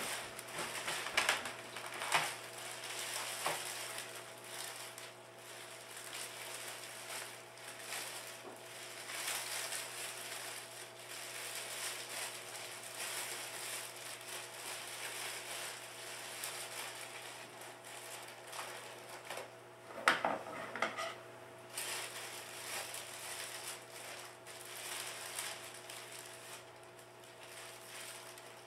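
Clear plastic cellophane bag crinkling and rustling as it is handled and pulled off a flower arrangement, with louder crackles near the start and about twenty seconds in.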